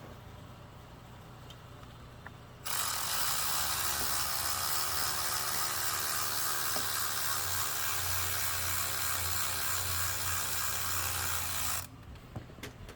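Cordless power tool spinning out a loosened alternator mounting bolt. It runs steadily for about nine seconds, starting about three seconds in and cutting off abruptly, followed by a few light clicks of tool and bolt.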